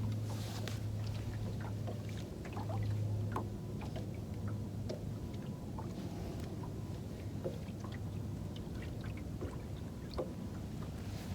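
Steady low hum of a small electric motor or pump aboard a fishing boat, swelling briefly about three seconds in, with scattered light ticks and taps.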